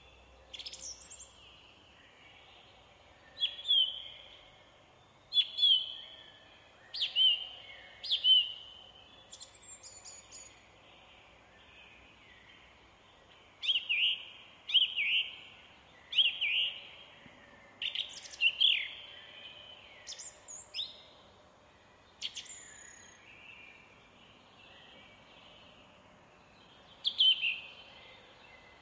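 Canada goose goslings peeping: short, high, falling peeps, singly or in quick pairs every second or two, with a few quieter spells.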